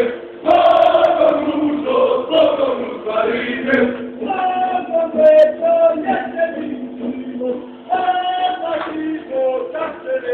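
Orthodox church choir chanting, several voices moving between held notes over a steady low drone.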